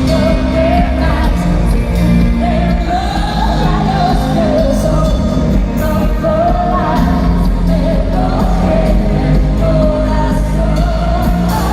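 Live pop music with a woman singing a wavering melody over a loud, bass-heavy backing.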